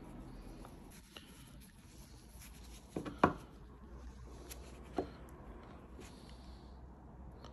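Gloved hands handling a small motorcycle engine decompression valve: faint rubbing with a few sharp clicks, the loudest about three seconds in and another about five seconds in.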